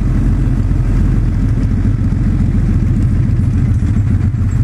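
Motorcycle engine running steadily at low revs as the bike rolls slowly in traffic, heard close up from the rider's seat as a loud, low engine note.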